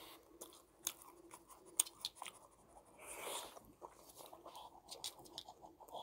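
Close-miked chewing of fried snacks, with scattered sharp crunches and mouth clicks, and a short breathy rush about halfway through.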